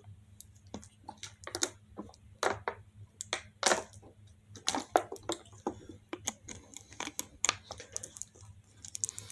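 Disposable plastic water bottle crinkling and clicking in the hands as its cap is unscrewed and it is drunk from: a scatter of short, irregular crackles.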